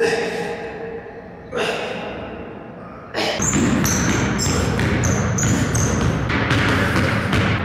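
Basketball bouncing on a hardwood floor in an echoing racquetball court: two single bounces that ring out, then fast, rhythmic dribbling from about three seconds in, with short sneaker squeaks.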